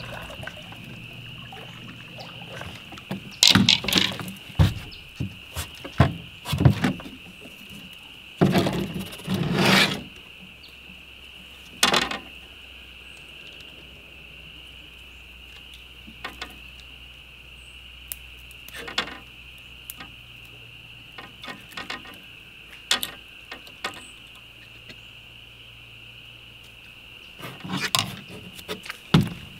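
A steady, high-pitched insect drone underneath irregular loud knocks, clatters and rustles, which come in short clusters.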